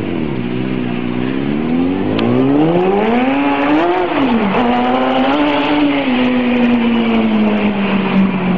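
Yamaha YZF-R6 600 cc inline-four engine in a lawn mower, revving up with a rising pitch for about three seconds. Its pitch dips sharply just after four seconds in, then falls slowly as the revs come down.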